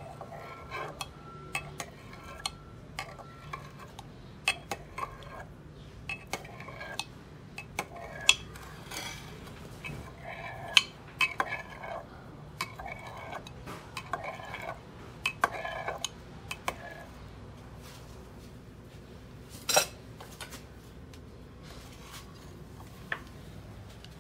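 Knife blade clicking and clinking against the bottom and sides of a glass baking dish while cutting soft tofu pudding into small pieces. The clicks come irregularly, thin out after about seventeen seconds, and one louder knock comes near twenty seconds.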